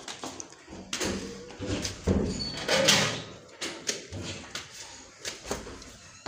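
Irregular slaps and knocks of footsteps in slip-on sandals climbing a tiled staircase, with a louder, noisier moment about three seconds in.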